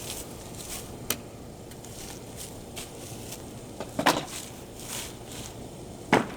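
A few sharp knocks on wood during work on deck banister rails: a light one about a second in, louder ones about four seconds in and near the end, with soft scuffing between.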